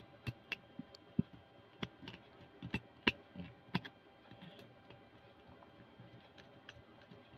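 Small screwdriver turning the screw terminals of a compact amplifier board to clamp speaker wires: a scatter of light, irregular clicks and scrapes, loudest in the first four seconds and fainter after.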